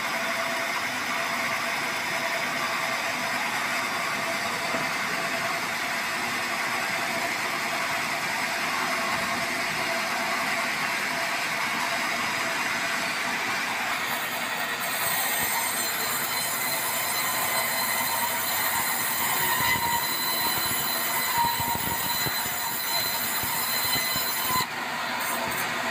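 Sawmill band saw running and cutting lengthwise through a debarked meranti log. A steady mechanical running noise carries throughout, and about halfway in a higher whine with several steady tones joins it.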